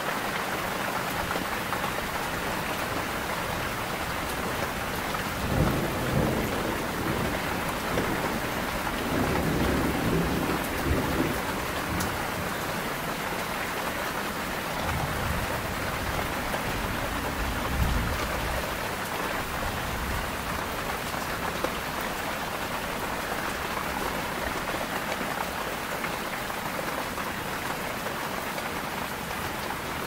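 Heavy rain falling steadily with a constant hiss. Thunder rolls through it several times in low rumbles, the longest about a third of the way in and another a little past halfway.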